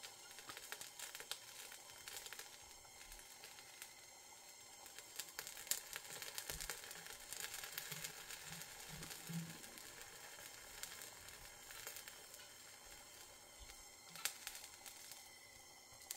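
Faint crackling and sizzling of white paste flux and soft solder heating under a torch flame as solder wire is melted onto the back of a sterling silver overlay. The crackling is busiest in the middle.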